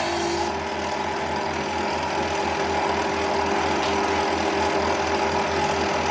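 Electric sander motor running steadily, with a rhythmic low throb of about three to four beats a second. A grinding tone eases off about half a second in.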